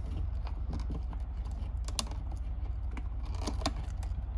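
Scattered light clicks and ticks of a screwdriver and copper wires against the terminal screws of an old wall outlet as the wires are taken off, two of them close together past the middle, over a steady low hum.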